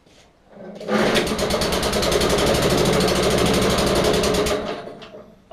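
Suffolk Punch 43S lawnmower's petrol engine catching about a second in, running with rapid, even firing for a few seconds, then dying away near the end. It is the engine's first start after standing unused for a long time, not yet running on its own steadily.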